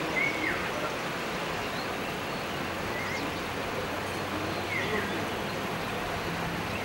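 Outdoor ambience: a steady rushing background noise with a few short bird chirps scattered through it.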